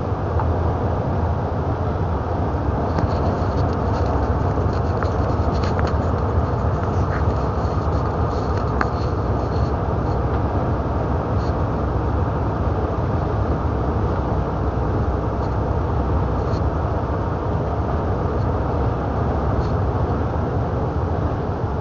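Steady engine and road noise inside a moving truck's cab.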